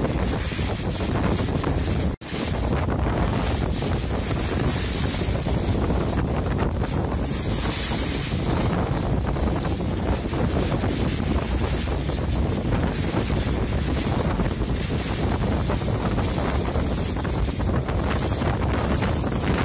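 Steady, loud wind buffeting the microphone, cutting out for an instant about two seconds in.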